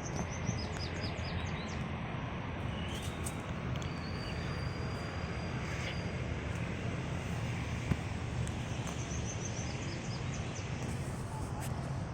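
Outdoor ambience: a steady low rumble with a bird calling in runs of short, high, falling chirps, once near the start and again about eight seconds in.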